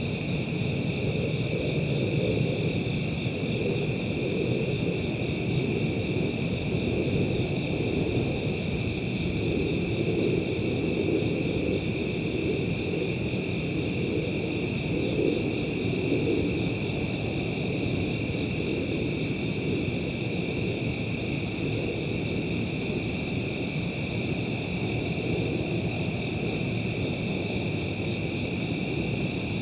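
Steady outdoor night ambience: a continuous high-pitched insect chorus, slightly pulsing, over a low steady rumble.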